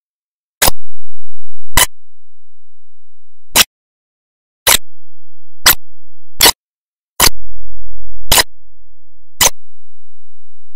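Sharp single clicks at uneven intervals, about eight in all, roughly one a second, with dead silence between them.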